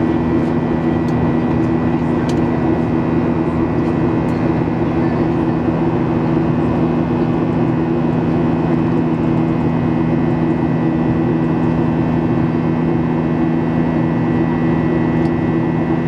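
Boeing 737-800's CFM56-7B turbofan engines heard from inside the cabin, a steady loud roar with a constant low hum and a thin high whine.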